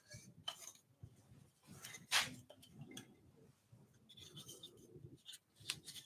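Faint taps, clicks and rubbing of wooden parts being handled, as turned wooden tenons are pushed into the holes of flat wooden wing pieces to check the fit, with one sharper knock about two seconds in.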